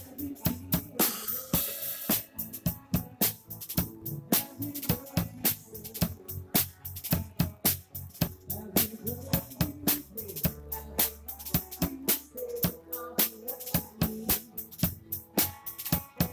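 Drum kit played in a steady, even beat of bass drum, snare and hi-hat over recorded pitched backing music, with a cymbal wash about a second in.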